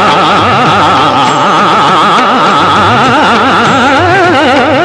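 Hindustani classical film song music: a passage of fast melodic runs (taans), the pitch wavering up and down several times a second without a break, over steady accompaniment.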